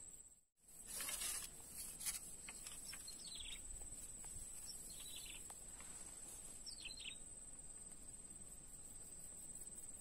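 Quiet outdoor swamp ambience: a few faint, short bird chirps spaced a couple of seconds apart over a thin, steady high-pitched whine, with a brief rustle about a second in.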